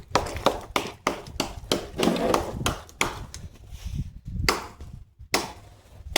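Wood being struck: a run of sharp knocks, roughly two to three a second, briefly stopping about five seconds in.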